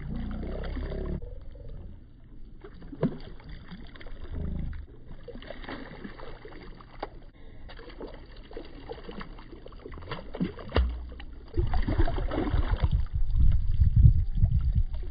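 A hooked largemouth bass splashing and thrashing at the water's surface beside a boat hull, with water lapping and scattered small splashes. About two-thirds of the way in a heavy low rumble on the microphone sets in and lasts to the end, as the fish is grabbed at the boat's side.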